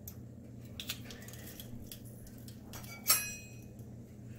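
Metal garlic press working over a stainless-steel skillet: a few faint clicks, then about three seconds in a sharp metallic clink that rings briefly, the press knocking against the pan.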